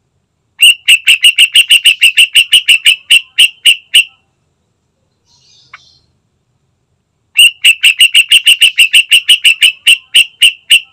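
Yellow-vented bulbul giving loud, rapid chattering calls: two bouts of about three seconds each, some six even notes a second, with a pause between them.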